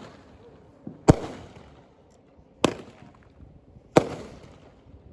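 Fireworks going off: three sharp bangs about a second and a half apart, with a smaller pop just before the first, each trailing off briefly.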